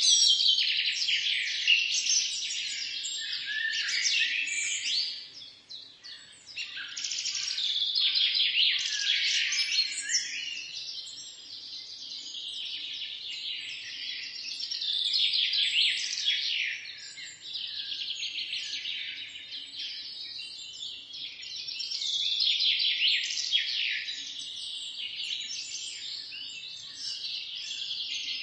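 A dense chorus of small birds chirping and twittering, many quick high calls overlapping, with a brief lull about five seconds in.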